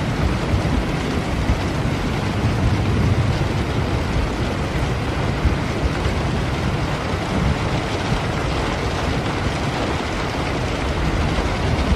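Steady rain falling, with a low rumble underneath that is strongest in the first few seconds.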